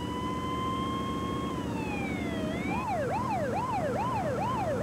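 Ambulance siren in a slow rising-and-falling wail that switches a little over halfway through to a fast yelp, about three cycles a second, with the vehicle's engine running underneath.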